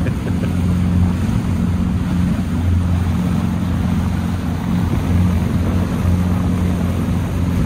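A boat's engine running steadily while under way, with a low, even hum, over a rush of water and wind noise on the microphone.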